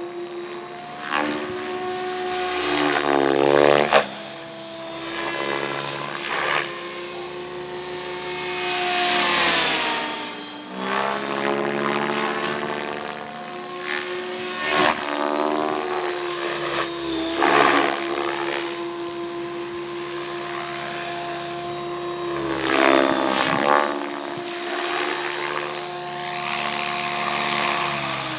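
Radio-controlled helicopter's rotor and motor running with a steady whine whose pitch dips and recovers, broken by repeated whooshes of the blades thrashing the air. The pitch starts to fall near the end.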